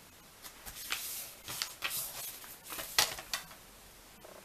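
A sheet of paper being handled and lined up on a plastic rotary paper trimmer: a series of short rustles and light clicks, the sharpest about three seconds in.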